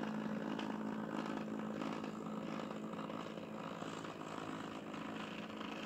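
Hornby OO gauge Eurostar model train running along the track: a steady electric motor hum over running noise, slowly fading a little.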